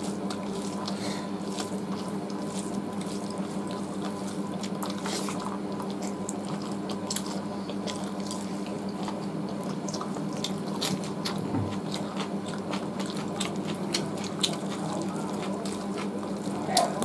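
Two people eating roast chicken with their hands: wet chewing and lip-smacking with irregular small clicks as meat is torn and bitten, over a steady low hum.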